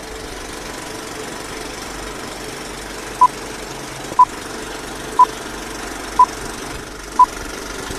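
Vintage film countdown leader sound effect: steady film-projector rattle and hiss, with a short high beep once a second starting about three seconds in, five beeps in all.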